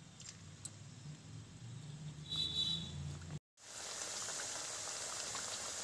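Rounds of maida-and-suji dough frying in hot refined oil in a kadhai: a steady sizzle with fine crackles that begins suddenly about three and a half seconds in, after a moment of silence. Before it there is only a faint low hum.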